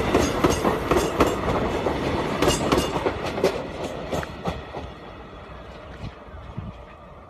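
Indian Railways train clattering along the track, its wheels clicking over rail joints in a steady run of knocks over a rumble. The clatter dies away about five seconds in, leaving a quieter low rumble.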